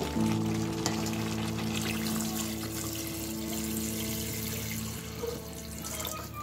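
Water poured in a steady stream into a pot of chicken curry with potatoes and green papaya, splashing into the gravy, over a steady low hum.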